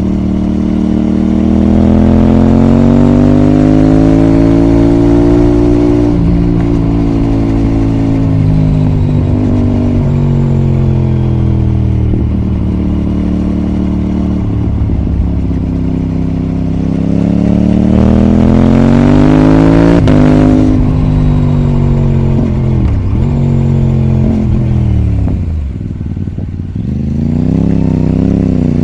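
Aprilia RS660's 659 cc parallel-twin engine, recorded on board while riding, pulling up through the revs and easing off again. Its pitch rises over the first few seconds, falls away, climbs again about two-thirds through, then drops sharply and dips low twice before picking up near the end.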